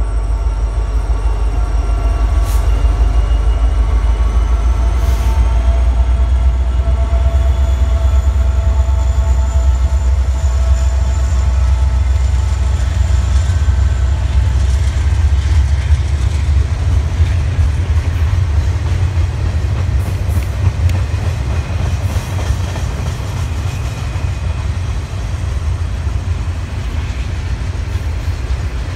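Two Norfolk Southern diesel-electric locomotives, an EMD SD70ACe leading a GE AC44C6M, pass with a heavy low rumble and a drawn-out whine that slowly drops in pitch. In the second half the whine fades and double-stack intermodal container cars roll by with a steady rumble and clatter of wheels on rail.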